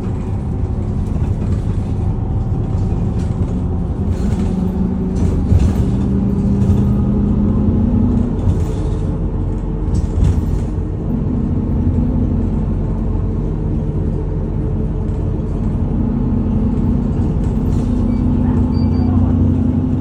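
Bus engine and road noise heard inside the cabin: a steady low rumble with an engine drone that shifts in pitch now and then. Brief louder knocks come about five and ten seconds in.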